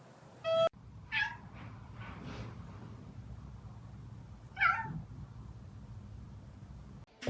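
A cat meowing: one clear meow about a second in, a few fainter ones just after, and another clear meow past the middle.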